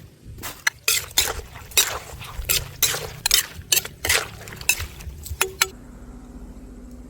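Wet clinking and knocking of kitchen utensils against a dish, about two strikes a second. It stops a little before the end, leaving a low steady hum.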